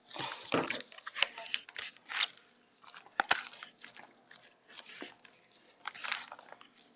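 Close-miked biting and crunching into a raw salad of mixed greens and cucumber, with wet chewing between bites. The crunches come in clusters, loudest in the first second.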